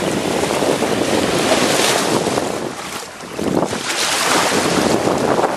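Wind buffeting the microphone over small ocean waves breaking and washing on a sandy shore; the rush eases briefly about three seconds in.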